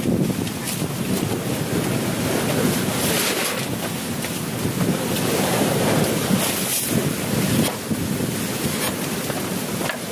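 Wind buffeting the microphone over the wash of waves: a continuous, uneven rushing noise with a few brief louder swishes.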